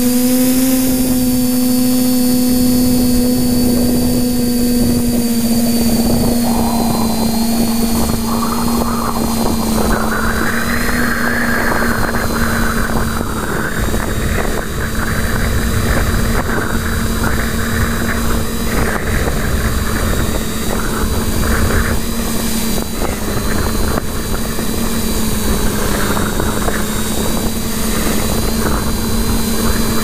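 A TBS Discovery quadcopter's four brushless motors and propellers humming at a steady pitch, heard through its onboard GoPro. From about six seconds in, a gusty rushing noise of strong wind on the camera's microphone joins the hum.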